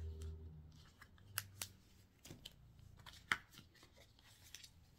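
A few faint, sharp clicks and light handling sounds as a new pair of grooming chunker shears is taken out and handled. The sharpest clicks come about a second and a half and about three seconds in.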